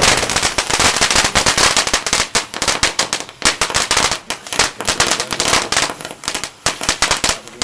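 A string of firecrackers going off in a steel fire pit: a sudden start, then rapid, irregular bangs and cracks.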